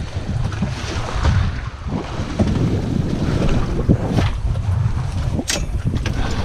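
Wind buffeting the microphone on a small boat at sea, with water sloshing against the hull and a few sharp knocks on deck, the sharpest about five and a half seconds in.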